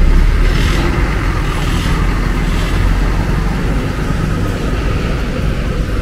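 Coach bus's diesel engine rumbling as the bus pulls away, loudest at first and easing off as it moves off, with a few short hisses about a second in and near three seconds.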